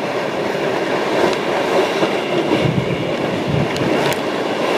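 Strong wind buffeting the microphone and water rushing past the hull of a racing yacht sailing hard in winds of 30 knots and more, gusting over 40: a steady loud rushing noise with a few low thumps around the middle.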